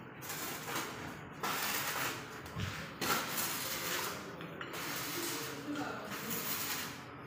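Electric arc welding on a steel pipe gate: the arc gives a noisy hiss in stretches, broken by short pauses about a second in and again past the middle as the welder stops and restarts.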